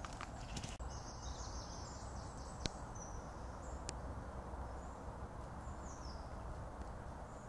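Small birds chirping over a steady background rush, with a sharp click about two and a half seconds in and a fainter one about a second later.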